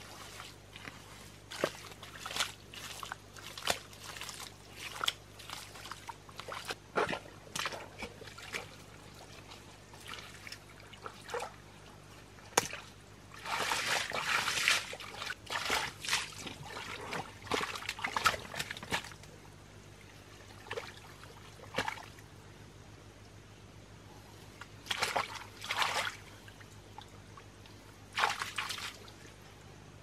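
Hands scooping and sloshing through shallow muddy water and mud: a run of short wet splashes and squelches, busiest in the middle, then two brief splashes near the end.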